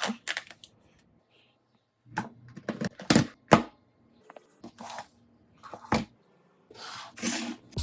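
Scattered sharp clicks and taps in small clusters, with a short scraping or rustling sound near the end.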